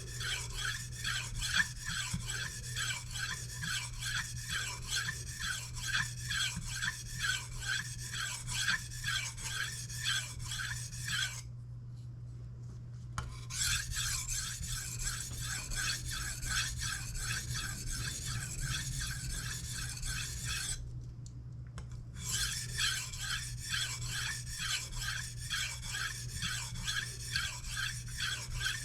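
A kitchen knife blade being sharpened on a whetstone: quick, even back-and-forth scraping strokes, stopping twice for a moment. A steady low hum runs underneath.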